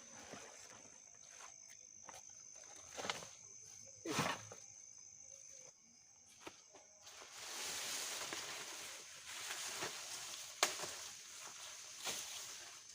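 Footsteps and rustling through forest undergrowth and leaf litter, with a few sharp snaps, over a steady high-pitched insect drone; the rustling grows louder from about halfway through.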